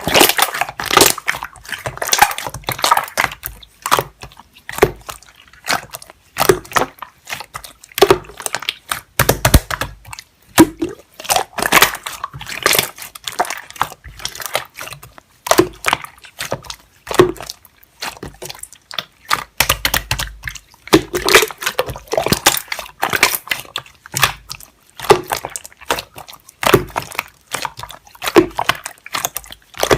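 Slime being squished and pressed by hand: irregular wet clicks, pops and squelches, several a second.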